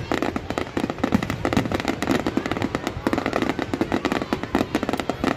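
Fireworks display: a dense, continuous run of bangs and crackles from many bursting shells, going on without a break.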